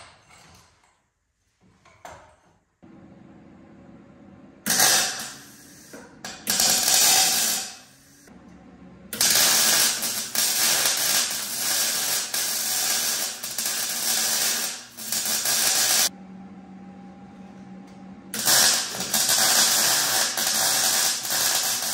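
Electric arc welding, tack-welding a steel four-link mount onto a truck's rear axle housing: two short welds about five and six and a half seconds in, then a longer weld from about nine to sixteen seconds and another from about eighteen seconds on. Between the welds there is a low steady hum.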